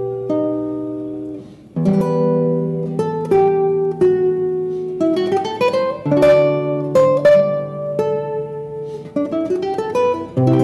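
Solo classical guitar played fingerstyle: plucked notes and chords ring out and fade. There is a brief gap about a second and a half in, and quick rising runs of notes come around the middle and again near the end.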